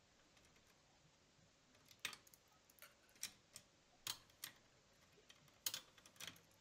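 Faint, sharp metal clicks from a hex key turning the clamp screw of a rim-dynamo bracket as it is tightened onto the bicycle frame. About a dozen irregular clicks begin about two seconds in.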